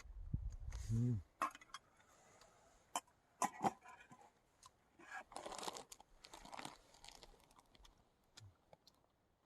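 Someone eating ramen and kimchi: chewing and crunching close to the microphone, with scattered small clicks, after a short hummed murmur about a second in.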